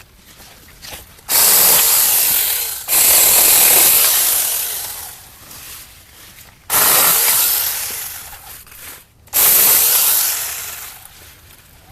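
Battery-powered mini chainsaw running in four bursts while cutting through fig tree branches; each burst starts suddenly and dies away over a second or two.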